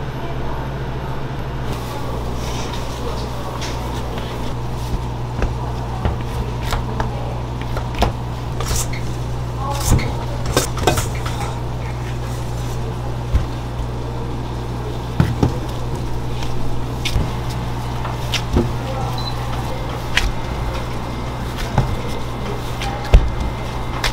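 Commercial bakery kitchen work: a steady low machine hum under scattered clicks, knocks and clatters of utensils and metal baking pans being handled.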